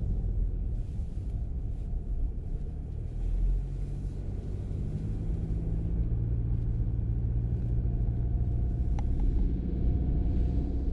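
A low, steady rumble with faint humming tones in it.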